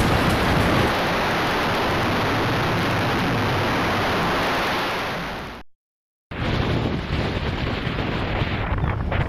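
Steady, loud wind noise buffeting the camcorder microphone, fading out about five seconds in; after a brief cut to silence, gusty wind noise on the microphone resumes.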